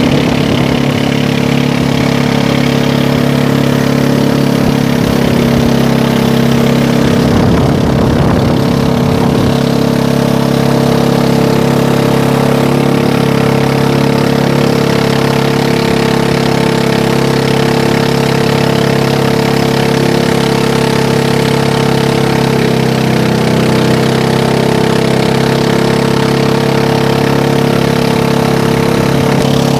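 Pump boat engine running steadily under way, its note dipping briefly about three-quarters of the way through. A short rush of noise joins it around eight seconds in.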